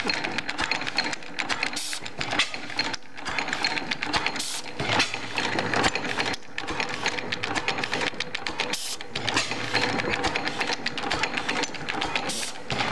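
5 HP Springfield hit-and-miss gas engine running with a steady, rapid metallic clatter from its valve gear, igniter trip and fuel injector, with a few louder bursts spaced a few seconds apart.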